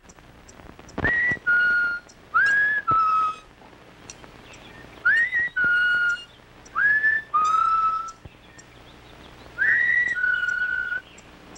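A whistled tune in short two-note phrases, five of them. Each one slides up to a high note and then steps down to a lower held note.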